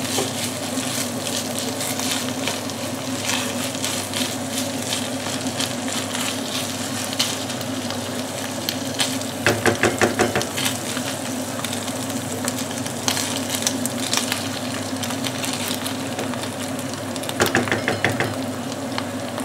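Minced meat sizzling in a frying pan, stirred with a wooden spoon. Quick runs of scraping strokes against the pan come about halfway through and again near the end.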